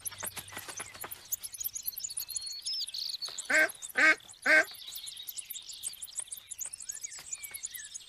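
A duck quacks three times in quick succession, over a continuous background of small birds chirping.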